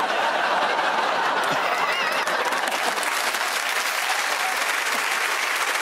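Studio audience applauding steadily, with laughter mixed in, in reaction to a joke.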